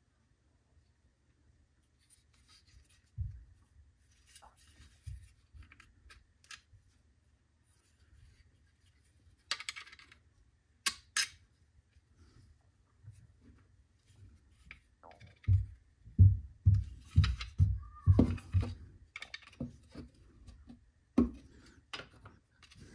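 Small clicks and scrapes of metal on hard plastic as an old bolt is worked into the holes of an old plastic coolant pipe to pry out its plastic bolt-sleeve inserts. A run of dull knocks and handling clicks comes in the last third.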